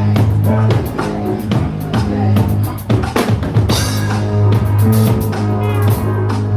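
Recorded music with a heavy bass line and a steady drum beat played loud through a PA system during a sound check.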